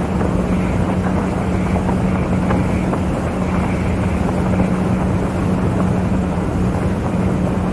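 Motorboat engine running steadily under way, a constant hum, with wind noise on the microphone.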